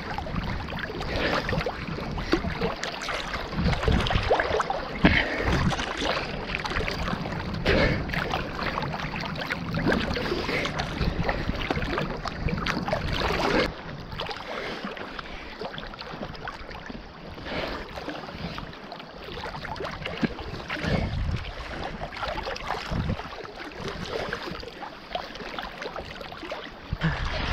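Sea water splashing and sloshing against a camera held at the surface by a swimmer, with irregular splashes from swimming strokes and small waves. It turns quieter about halfway through.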